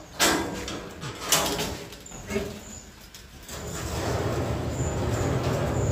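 Stainless steel folding door being pulled along its overhead track: two sharp metal knocks in the first second and a half and a lighter clatter soon after as the leaves meet, then a low rumble that builds over the last couple of seconds.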